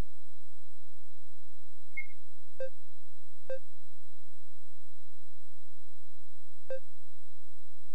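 Ultrasound scanner giving short electronic beeps while a crown–rump length measurement of the fetus is taken: one high blip about two seconds in, then three lower beeps, two close together and one near the end. A faint steady electronic whine and hum runs underneath.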